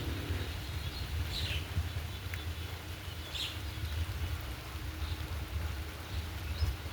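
A bird calling: short falling chirps, three of them about two seconds apart, over a steady low rumble and a faint hiss.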